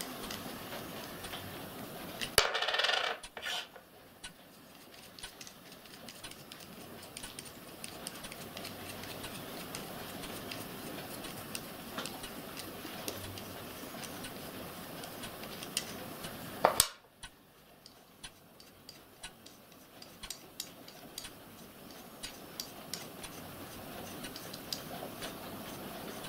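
Small metal nuts and fittings being unscrewed by hand from a gas burner's tube manifold and set down on a wooden bench: scattered light metallic clicks and taps. A louder clatter comes about two and a half seconds in, and a single sharp knock a little past halfway.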